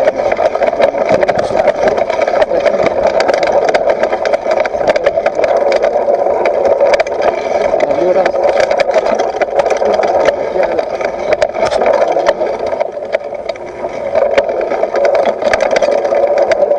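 Mountain bike ridden over bumpy grass and dirt, heard through an action camera mounted on the bike: a steady rough rushing noise with many rattling clicks from the bike and mount. It eases briefly about three-quarters of the way through.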